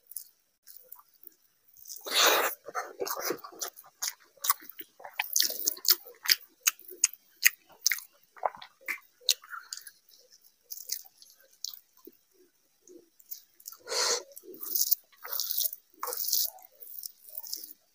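A person eating rice and mutton curry by hand: fingers mixing rice and curry on the plate, then chewing with lip smacks. The sound is a dense run of short clicks and smacks, with louder bursts about two seconds in and again near the end.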